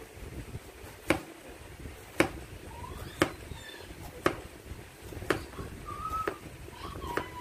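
Chef's knife slicing peeled patola (luffa gourd) into rounds, each cut ending in a sharp knock of the blade on the cutting board, steadily about once a second.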